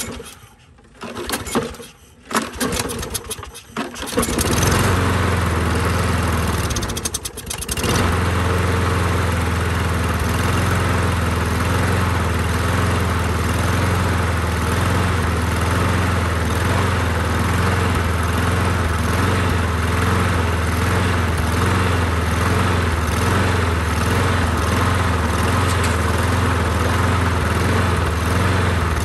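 Toro Recycler's Briggs & Stratton lawn mower engine being pull-started on its newly replaced carburetor: a few short cranking pulls, then it catches about four seconds in. It falters briefly a few seconds later, then settles into steady running.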